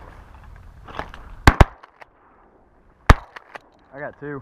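Shotgun blasts at flying ducks: two almost together about a second and a half in, then a third about three seconds in, with lighter clicks just after it. Near the end come two short pitched calls.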